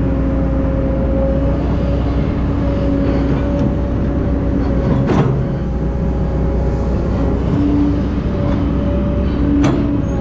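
Excavator's diesel engine running steadily under a steady whine. Two sharp knocks stand out, one about five seconds in and one near the end.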